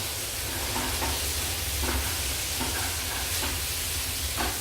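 Chopped tomatoes and onions frying in olive oil in a pan on high heat, with a steady sizzle. A few light knocks of a utensil stirring come through, over a low steady hum.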